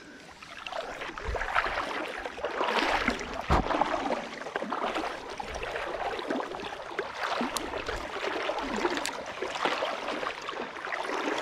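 Creek water sloshing and splashing unevenly around the legs of someone wading through a rainforest creek, with scattered small splashes and clicks.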